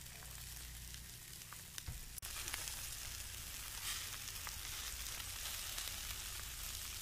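Chicken sizzling and crackling on a barbecue grill, getting louder about two seconds in.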